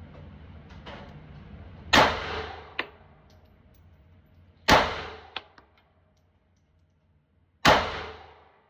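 Three pistol shots about three seconds apart, each a sharp crack with an echoing tail, and a lighter click shortly after each of the first two.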